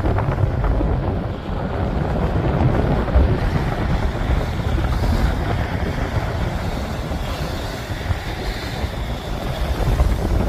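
Wind buffeting the microphone in a steady low rumble, over small waves breaking and washing up in the shallows.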